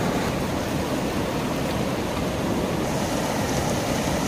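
Steady rush of flowing water, loud and even, with a low rumble underneath.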